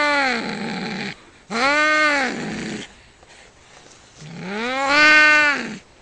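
Two domestic cats yowling during a fight: long drawn-out wails, each rising and then falling in pitch. The first is already under way and fades about a second in, and two more follow.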